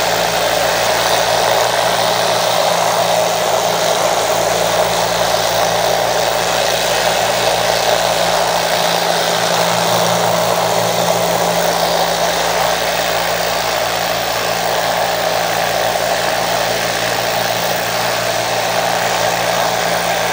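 Ultra-Vibe 10 vibratory tumbler running loud and steady with its bowl open: a motor hum under the wash and rattle of about ten pounds of agates churning in a thin polish-grit slurry during the pre-polish stage.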